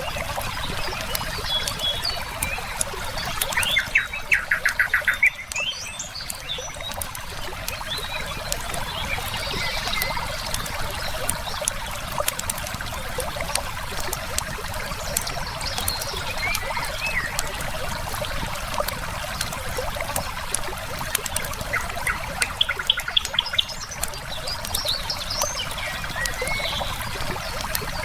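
Steady rush of a flowing river with a firepit crackling in sharp little pops throughout. Songbirds chirp now and then, and twice a bird gives a quick run of rapid repeated notes, about four seconds in and again past the twenty-second mark.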